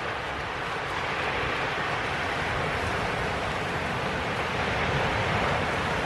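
Chicken drumsticks sizzling on the hot grate of a charcoal kettle grill as they get a final sear: a steady, even hiss.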